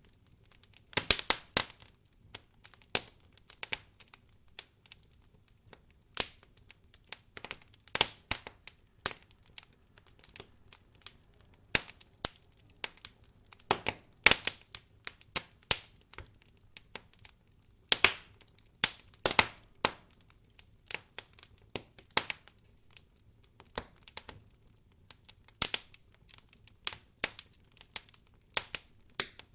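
Firewood burning in a campfire, crackling and popping: irregular sharp snaps over a faint hiss, with a quick run of crackles about a second in and a few louder pops scattered through.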